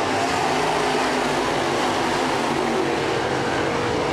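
A pack of crate late model race cars running together at speed on a dirt oval, their V8 engines making a steady, loud, multi-engine drone.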